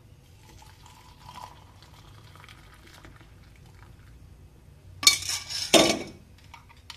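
Metal saucepan of milk tea being handled on the stove: faint clinks, then two loud metal clatters of the pan about five seconds in.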